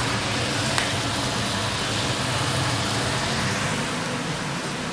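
Diced chicken and vegetables sizzling in a frying pan: a steady hiss with a low hum under it, and a single sharp click about a second in.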